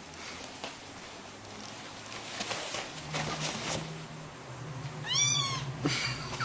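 A pet's single short, high, meow-like cry about five seconds in, rising then falling in pitch, over faint rustling and a low hum.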